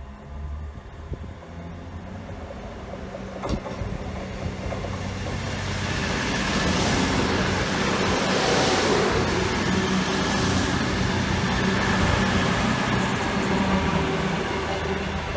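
A CrossCountry Voyager diesel unit passing close by. The drone of its underfloor diesel engines and the rush of its running grow louder as it nears and stay loud for several seconds while the coaches go past, then start to fade. There is one sharp knock about three and a half seconds in.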